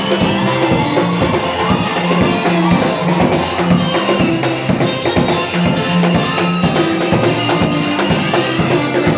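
Church band music: a drum kit keeps a steady beat under held bass notes and other instruments.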